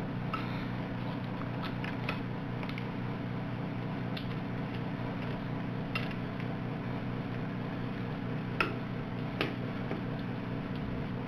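Scattered light clicks and taps of capacitors being handled and fitted into a metal worm clamp, over a steady low hum.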